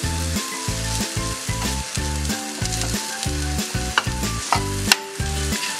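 A shredded chicken, onion and capsicum filling sizzling in a non-stick frying pan while a spoon stirs in a spoonful of all-purpose flour, with a couple of sharp clicks of the spoon on the pan about four and five seconds in. Background music with a steady note pattern plays over it and is the loudest sound.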